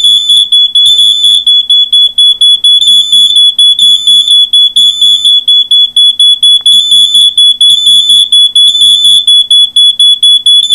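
Smoke alarm sounding: a loud, shrill, continuous alarm tone with a rapid flutter, cutting in suddenly.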